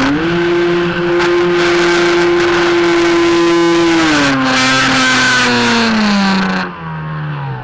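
The brushless electric motor and propeller of an E-flite Mystique 2.9M RES electric sailplane run in flight, a steady whine, with loud wind rushing over the microphone. The whine rises in pitch right at the start and holds, then drops in two steps as the throttle comes back. The wind rush cuts off about a second before the end.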